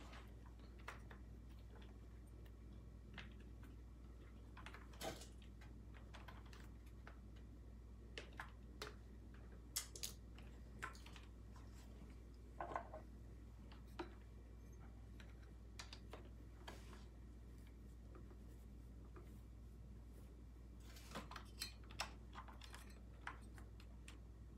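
Scattered small clicks and taps of plastic and metal parts being handled as the carburetor and intake are fitted back onto a Husqvarna 246 chainsaw, coming in short clusters over a faint low hum.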